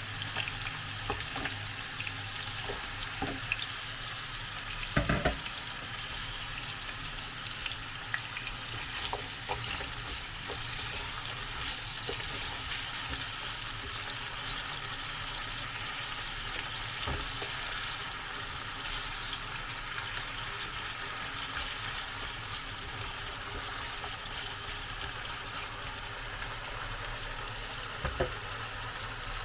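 Potato and carrot pieces frying in hot cooking oil in a pan, a steady sizzle, with a few knocks from the pan or a utensil, the loudest about five seconds in and another near the end.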